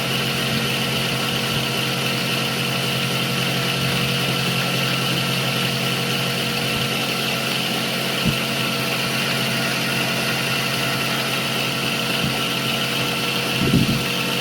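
Small milling machine running steadily, its motor and spindle giving an even hum with several steady tones. There are a couple of light knocks, about eight seconds in and near the end.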